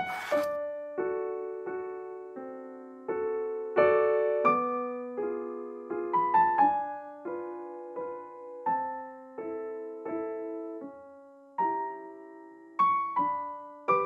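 Background piano music: a slow, gentle melody of single notes and chords, each struck and left to fade.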